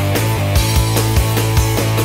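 Background music with a steady beat and sustained low bass notes.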